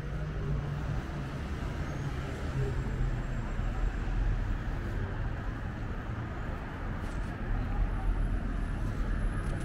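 Street traffic: a steady low rumble of passing vehicles and road noise, with a vehicle's engine hum that fades out about a second in.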